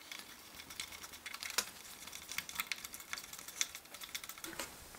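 Hand screwdriver driving a small screw through a casement stay pin's base plate into a timber window sill: a run of faint, irregular small clicks as the screw turns in.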